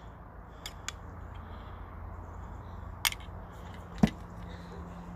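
A few light clicks of tableware being handled, a spoon and jar against crockery, with one sharper knock about four seconds in, over a steady low hum.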